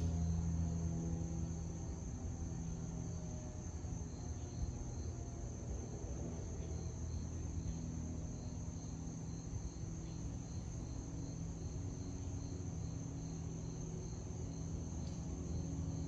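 Insects chirping in a steady pulsing rhythm over a low, steady hum. In the first several seconds, faint tones glide slowly downward: a distant outdoor warning siren winding down after its noon blast.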